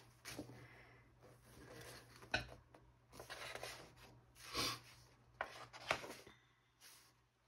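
Pages of a large glossy softcover catalog being turned by hand: a series of short papery swishes and rustles, the loudest about four and a half seconds in.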